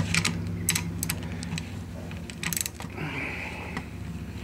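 Ratchet handle clicking a few times on a thread tap in the stripped spark plug hole of an outboard cylinder head, with light metal-on-metal clicks, over a steady low hum. A short hiss about three seconds in.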